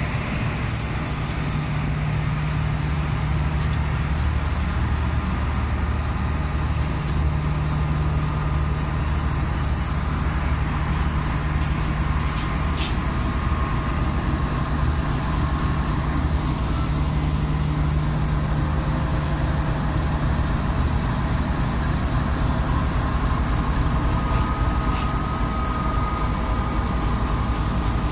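GEU-40 diesel-electric locomotive running with a steady low engine drone during shunting, with a few faint high squeals from the wheels on the rails.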